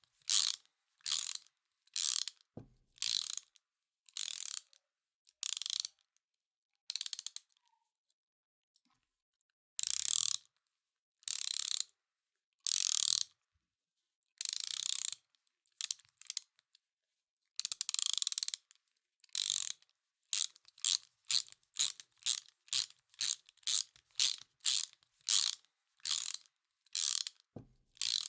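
Hand ratchet wrench being worked back and forth, each stroke giving a short burst of rapid pawl clicking. The strokes repeat at about one to two a second, stop for about two seconds a third of the way in, then come faster toward the end.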